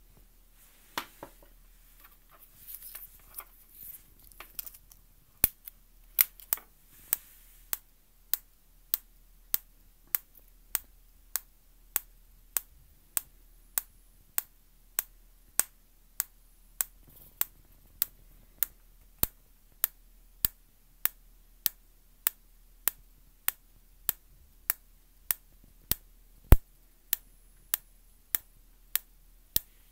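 Spark plug snapping as a hand-built transistor ignition circuit fires it, one sharp click about every 0.6 seconds in a steady, regular run. It is preceded by a few seconds of irregular clicks and handling noise.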